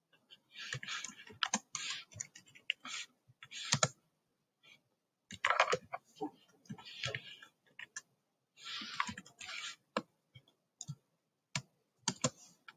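Computer keyboard typing in several short bursts of keystrokes with pauses between them.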